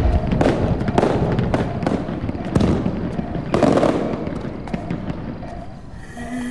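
Aerial fireworks going off: a run of bangs with crackling sparks between them, thinning out and fading away over the last couple of seconds.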